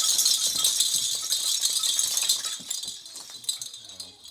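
Rustling and rattling of Christmas tree decorations being handled and pulled off the tree, fading out about three seconds in.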